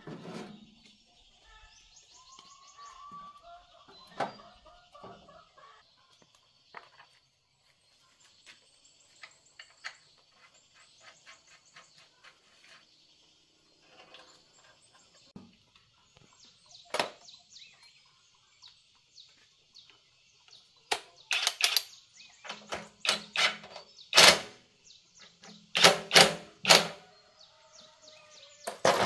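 Metal hand tools clinking and knocking against a small diesel engine and a steel toolbox: scattered light clicks, then a run of loud, sharp clanks in the last third. Birds chirp over a steady high-pitched background buzz.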